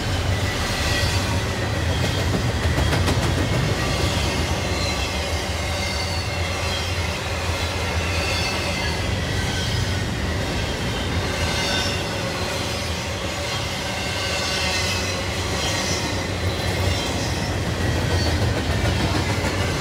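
Double-stack intermodal freight cars rolling steadily past at close range: a continuous rumble of steel wheels on rail, with thin, high wheel squeal coming and going over it.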